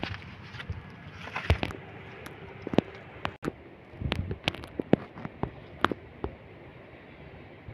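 Footsteps on dry, crumbly earth and loose stones: irregular crunching and sharp clicks with a few heavier thuds.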